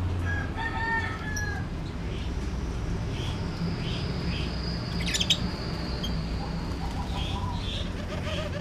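Birds chirping in short calls, with a brief clatter like wings flapping about five seconds in, over a steady low hum.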